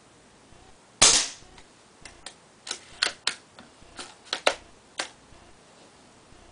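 A spring-powered bolt-action airsoft sniper rifle (JG BAR-10) fires a single shot with a sharp crack about a second in, followed by a quick series of lighter mechanical clicks and clacks as the bolt is worked to recock it.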